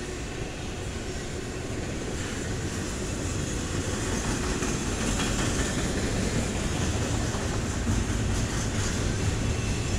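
Double-stack intermodal freight train passing close by, with a steady rumble and rattle of its cars' wheels on the rails. It grows louder over the first few seconds and then holds.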